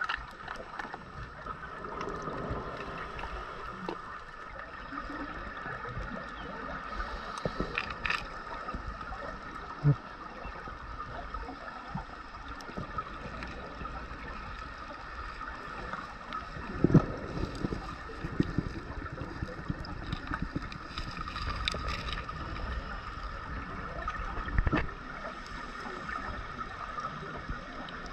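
Underwater sound picked up through a dive camera housing: a steady hiss with the diver's scuba exhaust bubbles gurgling up from the regulator a few times, about seven seconds apart.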